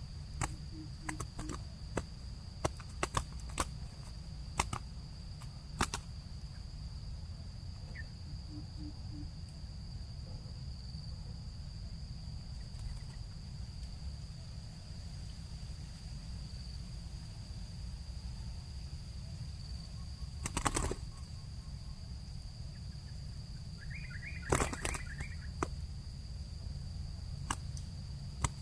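Outdoor field ambience: a steady high insect drone over a low rumble, broken by scattered sharp clicks and knocks. Twice there is a faint, low three-note cooing of a spotted dove, and near the end a brief higher bird call.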